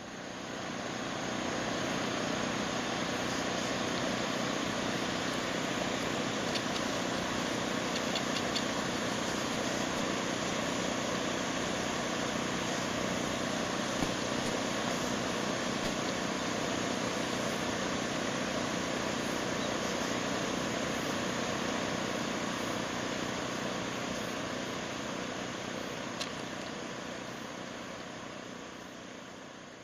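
Hydraulic excavator's diesel engine running steadily, with a few faint clicks.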